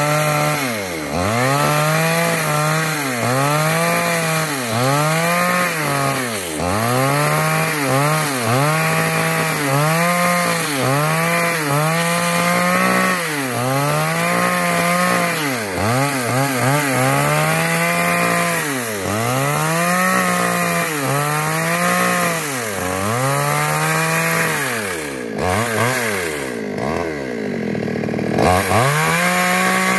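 Chainsaw cutting lengthwise through a log, the engine pitch repeatedly sagging under the load and recovering, about once every second or so. Near the end the throttle drops off for a couple of seconds, then revs back up.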